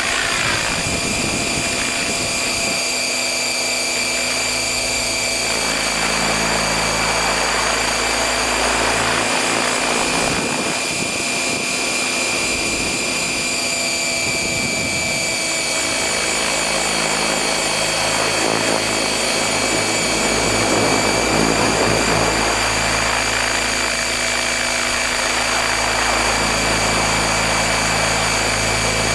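Electric RC helicopter, a stretched T-Rex 600 on 12S with 690 mm blades, heard in flight from a camera slung beneath it: a steady high-pitched whine over a broad rushing noise.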